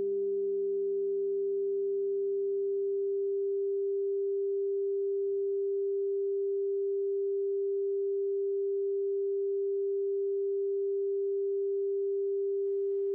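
A steady electronic sine tone near 396 Hz, a healing-frequency drone, held unchanged throughout. Fainter lower tones under it fade out in the first few seconds.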